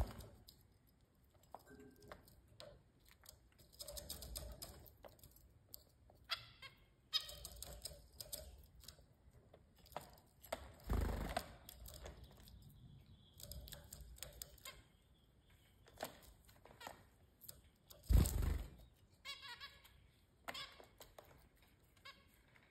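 Zebra finches giving short nasal calls now and then, with scattered small clicks and wing flutters as they hop between the food bowls, and two soft low thumps about 11 and 18 seconds in.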